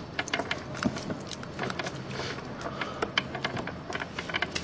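Irregular small clicks, scrapes and rustles close to the microphone as hands bend and wrap bonsai wire around a pine branch.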